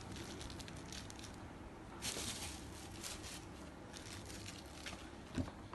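Paper and packaging rustling and crinkling as things are handled, in short bursts, the loudest about two seconds in, with a dull thump near the end.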